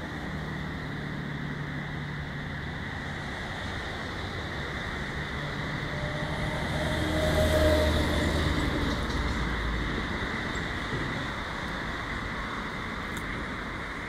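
Road traffic passing on a multi-lane road, with one vehicle's engine passing close and loudest about halfway through, then fading.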